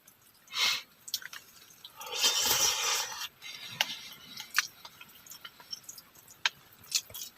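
Someone eating freshly cooked Maggi instant noodles: soft chewing and small clicks of a utensil, with a louder breathy rush lasting about a second, about two seconds in.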